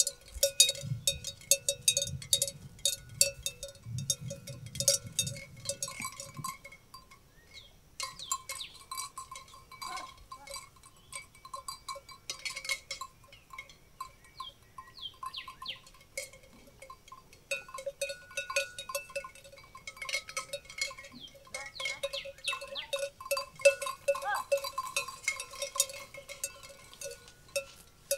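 Metal bells on grazing livestock clanking irregularly and continuously. The clanking thins out for a while in the middle, then picks up again.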